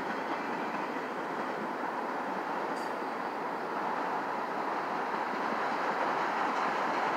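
Freight train's enclosed autorack cars rolling past: a steady rumble of steel wheels on the rails, growing slightly louder toward the end.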